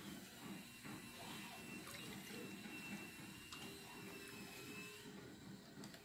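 Milky drink poured from a plastic bottle over ice cubes in a glass: a faint liquid trickle with a few light clicks, over a steady low room hum.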